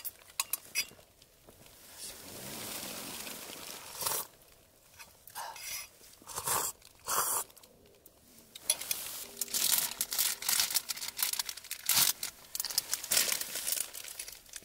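Rustling and crinkling of a nylon down jacket and plastic bags as someone shifts about in a small tent, with a spoon handled in an insulated food jar.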